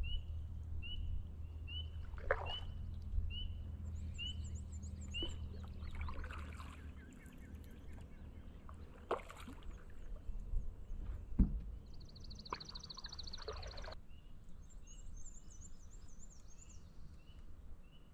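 A canoe being paddled on calm water: soft paddle strokes and drips, with a few knocks of wood on the hull. Birds call over it: a short chirp repeated about twice a second, plus higher trilling songs. A low rumble fades out about seven seconds in.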